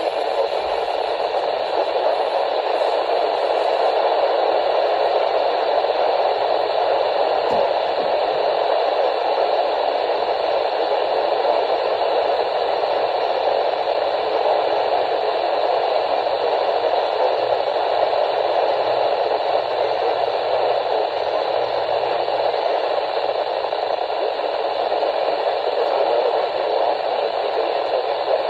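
Steady radio static: an even hiss from a NOAA weather radio receiver, with no voice or alert tone coming through.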